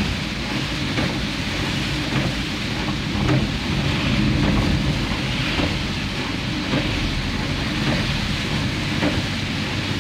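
Heavy rain falling on a moving car, heard from inside the cabin over a steady low rumble of engine and tyres on the wet road, with faint ticks about once a second.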